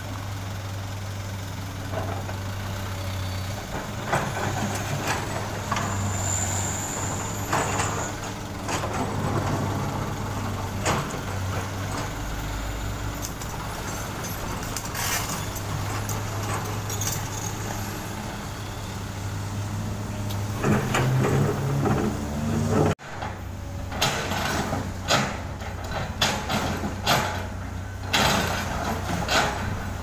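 Diesel dump truck engines idling with a steady low hum, with occasional knocks and a brief high hiss. About three-quarters through, after a sudden break, the steel bucket of a Komatsu PC200 excavator scrapes and knocks on broken asphalt, giving a series of sharp clanks.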